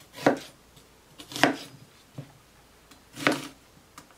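ROMEKER chef knife slicing through an onion and knocking on a wooden cutting board: three separate cuts at uneven intervals, with a couple of lighter taps between them.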